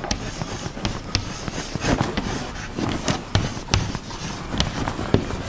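Chalk writing on a blackboard: irregular scratchy strokes and sharp taps as letters are drawn one after another.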